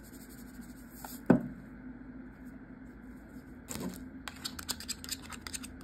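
Shaker bottle of Cavender's Greek seasoning in use: one sharp click about a second in, then a run of quick, light, irregular clicks and taps from about four seconds on.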